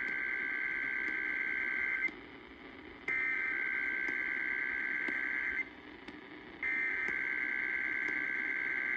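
Emergency Alert System SAME header: three bursts of digital data tones, each about two and a half seconds long, with about a second of hiss between them. The first burst is already under way at the start. The header encodes a required weekly test.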